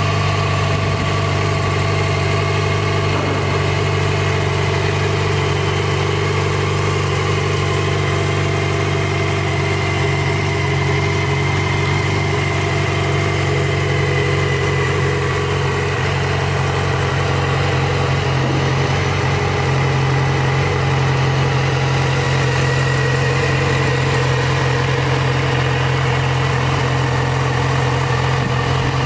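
Yamaha XJ6N's 600 cc inline-four engine idling steadily.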